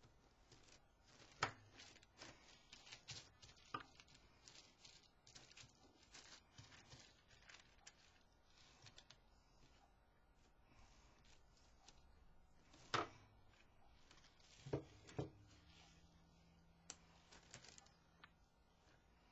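Faint rustling, crinkling and tearing of tissue paper being worked onto a paper tole tree with fingers and tweezers, with a few sharp taps, the loudest about a second and a half in and twice more past the middle.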